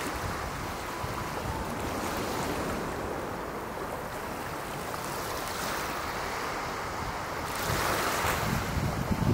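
Small sea waves washing on a pebble beach, with wind noise on the microphone; the sound swells louder near the end.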